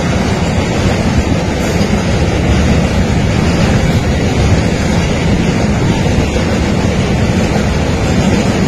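Double-stack container freight train passing close by at speed: a loud, steady rumble and rush of the wagons on the rails.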